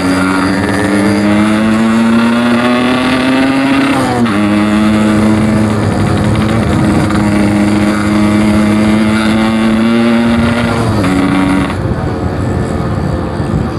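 Yamaha RX-King two-stroke single-cylinder engine, bored out to about 150 cc, pulling hard through the gears. Its pitch climbs, drops at a gear change about four seconds in, climbs slowly again, and drops at another shift near the end.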